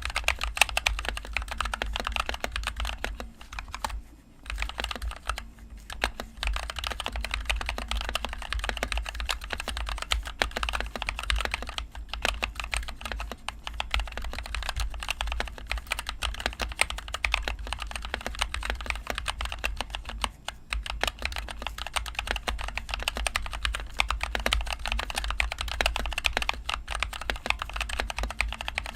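Continuous fast typing on a NovelKeys NK65 mechanical keyboard with linear NovelKeys Cream switches and HyperX Pudding keycaps, with dense key clacks and a few short pauses.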